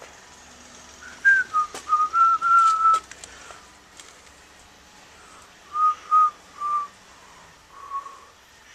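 A person whistling a short tune: a string of clear notes, a pause of a couple of seconds, then four more notes.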